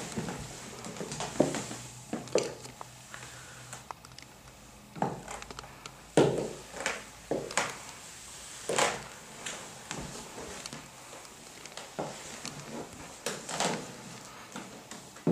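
Stiletto heels of thigh-high boots knocking on wooden floorboards: slow, irregular footsteps, with a pause of a few seconds after the middle.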